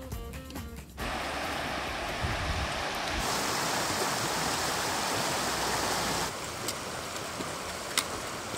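Shallow river rushing over stones, a steady hiss of water that cuts in after music ends about a second in and grows louder partway through. A few sharp clicks near the end.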